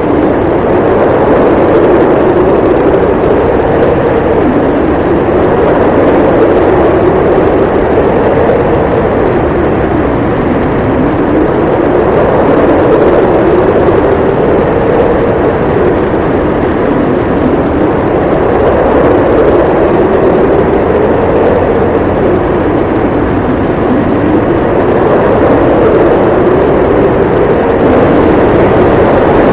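Blizzard wind howling, a loud, continuous rushing noise whose howl slowly rises and falls in pitch every few seconds.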